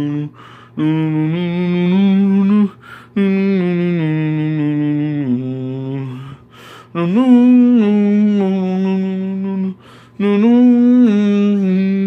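A man humming a slow melody in long held notes, four phrases with short breaths between them.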